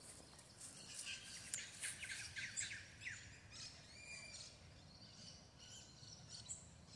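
Faint birds chirping: a flurry of short, quick calls in the first few seconds, then sparser chirps.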